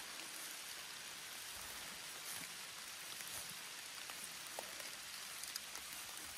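Rain falling on trees and fallen leaves: a steady hiss with scattered small ticks of drops.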